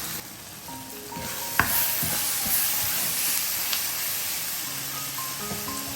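Chopped vegetables and spices sizzling as they fry in hot oil in a pan, stirred with a utensil, with a sharp knock against the pan about a second and a half in and a lighter one later. Faint background music plays underneath.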